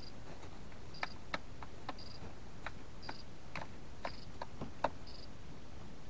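Pheasant pecking at bird feed: about ten quick, irregular sharp taps and clicks, one near the end the loudest. A faint, short, high peep repeats about once a second.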